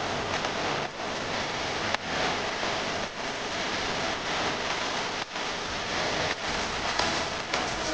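Steady rushing wind and road noise from a moving car, dipping briefly several times.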